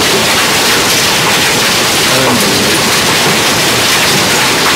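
Hail and heavy rain pelting down in a dense, steady, unbroken noise, with a faint voice about halfway through.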